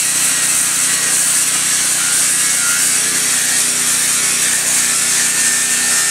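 Angle grinder with a sanding disc running steadily against the steel face of an anvil, grinding off the slag left from the hardening quench. A continuous high abrasive hiss sits over the motor's steady hum.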